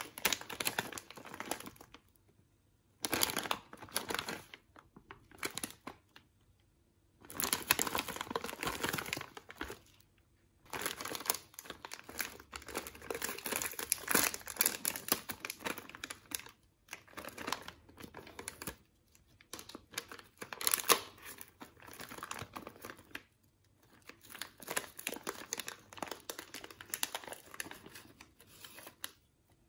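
Plastic cookie packet crinkling as it is handled and torn open, in spells of one to a few seconds with short pauses between them.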